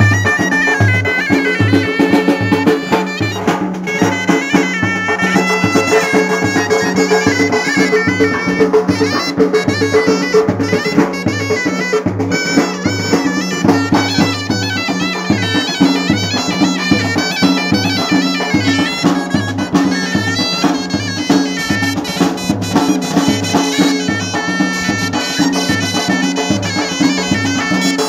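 Two reed pipes of the shawm type play a loud, reedy folk melody together, over a steady beat from a large bass drum and a snare drum.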